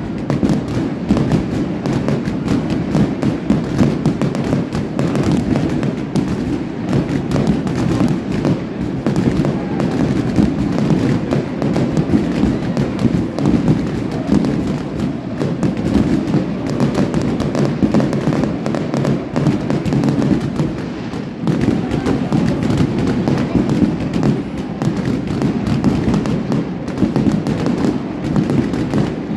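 Aerial fireworks bursting overhead in a continuous, dense string of overlapping bangs and crackles.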